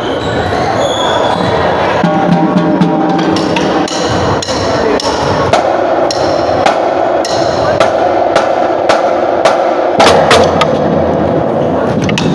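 Marching band drumline: sharp stick clicks, about two a second, set a beat in a large echoing gym over a crowd of voices.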